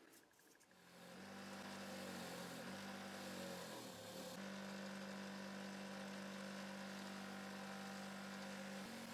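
Bench grinder running with a steady hum that comes up about a second in, its wire wheel brushing a pair of steel pliers with a hiss.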